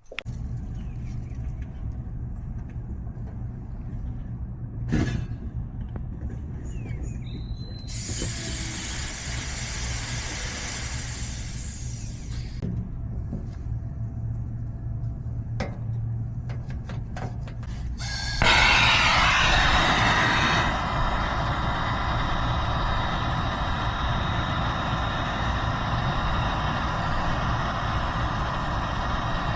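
Nitrogen hissing from a regulator into new refrigerant lines for a pressure test. A burst of hiss comes about eight seconds in, then from about eighteen seconds a louder hiss that settles into a steady rush, all over a constant low hum.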